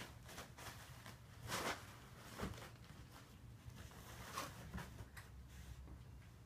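Paper towels rustling and crinkling in short, irregular bouts as a cat pulls and paws at them, loudest about a second and a half in, over a faint low hum.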